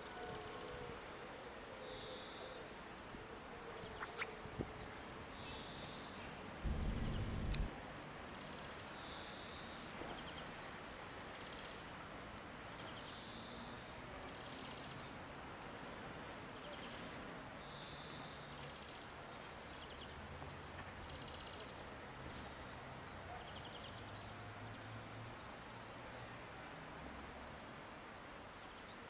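Small birds calling outdoors: thin, high, down-slurred notes repeated irregularly about once a second, with a softer, lower call every few seconds. A low rumble lasts about a second roughly seven seconds in.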